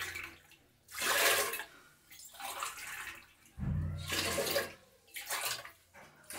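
Water poured from a steel tumbler into an aluminium pressure cooker of dal, in about five short pours one after another: water being measured in glass by glass before pressure cooking.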